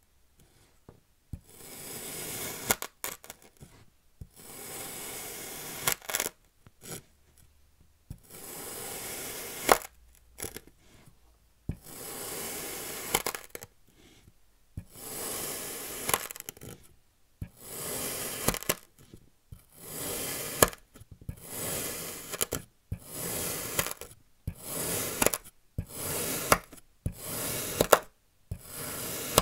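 Plastic knife cutting through packed kinetic sand: about fourteen slow slices, each a gritty, crunchy hiss of the blade pushing through the sand, most ending in a sharp click. The cuts come closer together in the second half.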